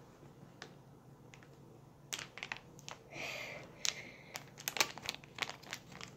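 Plastic blind-bag wrapper crinkling as it is squeezed and shaken in the hands, a quick run of small crackles that starts about two seconds in.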